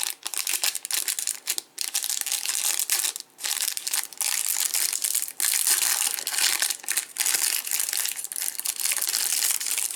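Plastic wrapping of a trading-card hanger box crinkling and tearing as it is opened by hand, an irregular crackle with a few brief pauses.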